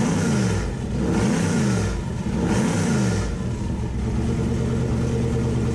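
LS V8 engine revved three times, then settling to a steady idle a little over three seconds in.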